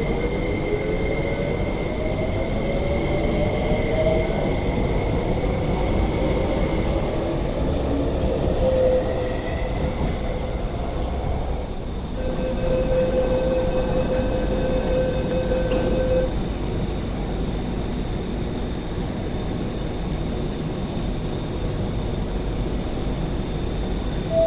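MTR East Rail Line SP1900 (IKK-train) electric train pulling out of the station, its traction motors whining upward in pitch as it picks up speed. About twelve seconds in the sound changes to a train standing at a platform, with a steady electrical hum and a high whine.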